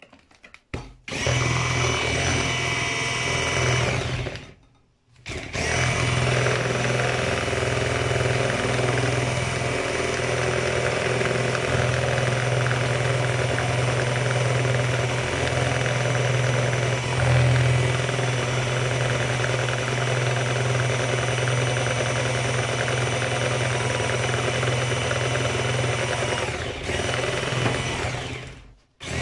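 Electric hand mixer with twin beaters running steadily as it beats a thick cake batter. It starts about a second in, stops briefly around four to five seconds in, restarts, and cuts off just before the end.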